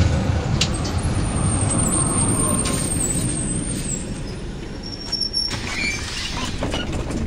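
City tram rolling into a stop: a steady rumble of wheels on the rails with a thin high squeal as it slows. Near the end a couple of short high beeps sound as the doors open.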